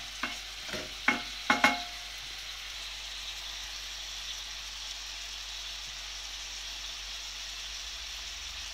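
Onion frying in oil in a tagine: a steady sizzle, with four short knocks against the pot in the first two seconds.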